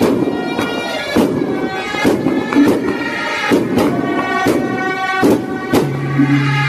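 Traditional Taiwanese temple ceremonial music: a suona's shrill reed melody over repeated sharp percussion strokes of drum, gong and cymbal.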